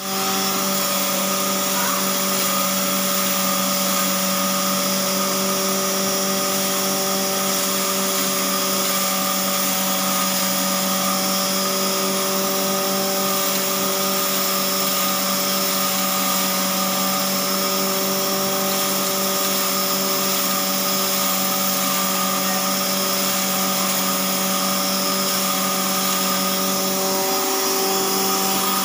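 Avadh 2 HP domestic atta chakki (electric household flour mill) running steadily: a constant motor hum and whine over a high hiss, with no change in speed.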